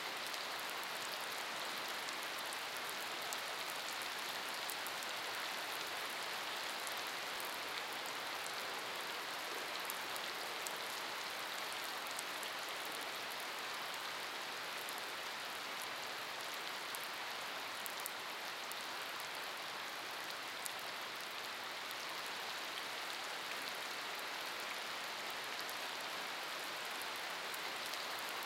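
Steady summer rain falling on wet pavement and puddles: an even hiss sprinkled with the small ticks of individual drops.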